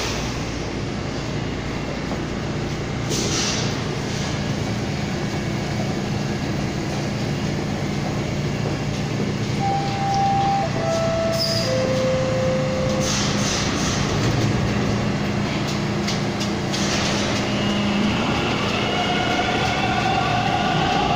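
Toronto T1 subway train at the platform: a steady hum from the standing train, then about halfway through the three-note falling door chime that warns the doors are closing. Near the end the train pulls out, its traction motors whining up in pitch as it accelerates.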